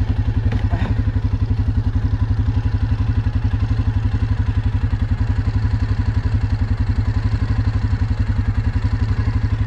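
ATV engine idling steadily, with an even, rapid low pulse that does not rev up or down.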